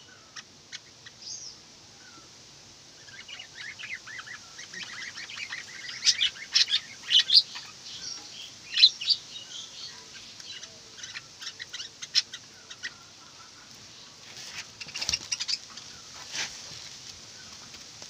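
Budgerigars chirping and chattering together in quick high warbles, scattered at first, growing into dense chatter a few seconds in, then thinning to scattered chirps with a couple of sharp bursts near the end.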